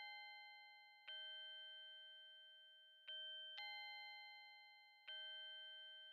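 Faint, sparse background music of bell-like chiming notes: four notes struck about two seconds apart, each ringing on and slowly fading.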